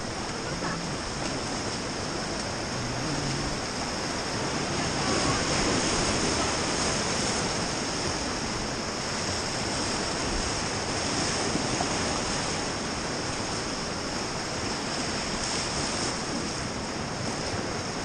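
Rushing whitewater of a river rapid around an inflatable raft: a steady wash of water noise, swelling a little about five seconds in.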